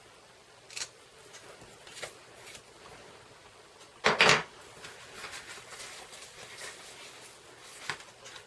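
Crafting handling sounds: a few light clicks, then a loud, short double knock about four seconds in as a clear stamp block is pressed or set down hard on the table.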